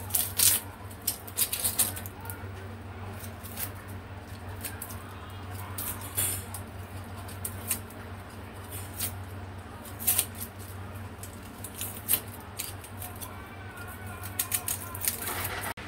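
A washing machine runs with a steady low hum. Over it come scattered short, sharp scrapes and clicks of a small paring knife peeling garlic skins on a plastic cutting board, thickest at the start and again near the end.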